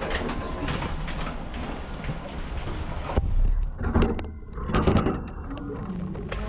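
A lift's sliding doors and a plastic ride-on toy car rolling out over a hard floor. A steady rumbling hiss runs for about three seconds and stops abruptly, followed by scattered clicks and knocks.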